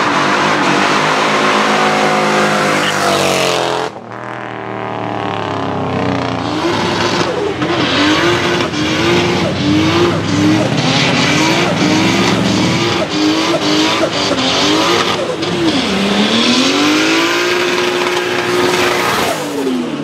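Cars doing burnouts, engines revved hard while the tyres spin on the tarmac. The sound cuts abruptly about four seconds in; after that an engine's revs rise and drop in quick repeated pulses for several seconds, then hold high near the end.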